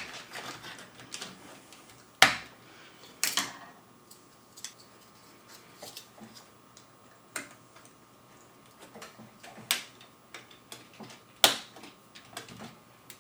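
Plastic clicks and small taps of a keyboard space bar and its stabilizer clips being unclipped and refitted on an Amiga A1200 keyboard. The clicks are scattered and irregular, with a few sharp loud ones about two, three, nine and a half and eleven and a half seconds in.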